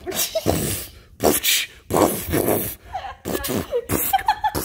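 A person laughing: three breathy bursts of laughter, then short higher giggles in the second half.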